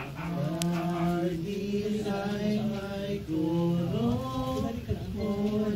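A person's voice chanting in long held notes that step and glide in pitch, with short breaks between phrases.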